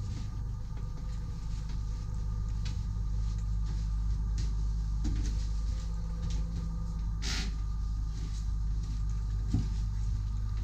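Steady low hum of a motor yacht's onboard machinery heard in a small cabin bathroom. A few faint clicks sit over it, and a short sharp noise comes about seven seconds in.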